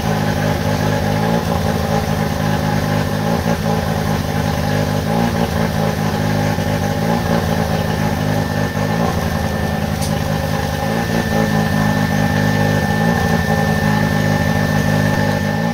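Mazda RX-7 FD3S's newly installed 13B twin-turbo rotary engine idling steadily on its first run, with a thin steady high tone that becomes clearer in the second half.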